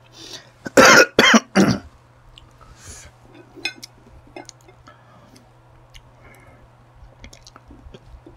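A man coughs three times in quick succession about a second in. Faint clicks and taps of chopsticks and crab shell against a plate follow.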